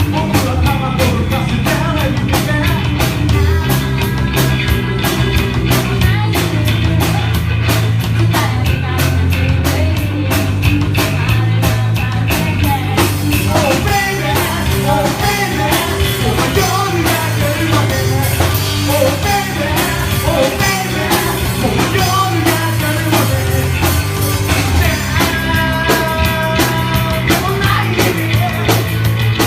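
A rock band playing live: drum kit, bass guitar and singing together in a steady, loud full-band song.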